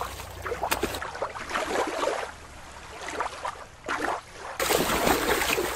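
Water splashing and sloshing. About a second in, the sound changes abruptly to a different recording of splashing water, and it changes back again near the end.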